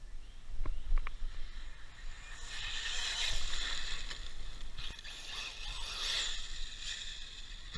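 An RC truck running hard over loose gravel, heard as a rushing hiss with a faint high motor whine in it. The hiss swells about two and a half seconds in and eases near the end. Two sharp clicks come about a second in.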